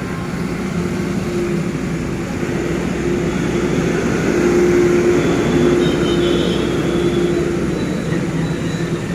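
Old Royal Enfield G2 Bullet's single-cylinder engine running steadily with its characteristic thump, after its tappets have been set. It grows a little louder through the middle and eases off slightly near the end.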